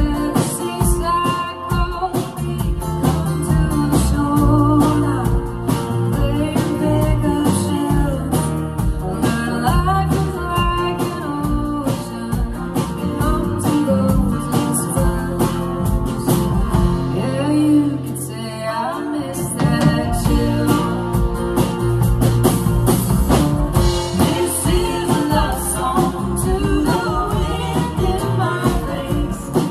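Live band playing a song: acoustic and electric guitars, bass and drums, with women singing. The drums and bass drop out for about two seconds past the middle, then the full band comes back in.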